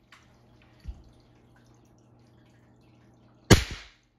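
Ruger Air Hawk .177 break-barrel spring-piston air rifle, fitted with a stiffer piston spring, firing once near the end: one sharp crack with a short tail. Earlier there is a small click and a short low thump from handling the rifle.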